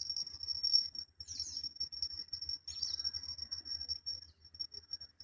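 Insect chirping: a steady, high-pitched pulsing chorus of crickets. Two short falling chirps break in, about a second in and near three seconds.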